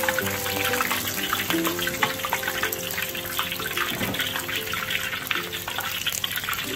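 Hot oil sizzling and crackling steadily as food deep-fries, under background music with a simple stepping melody.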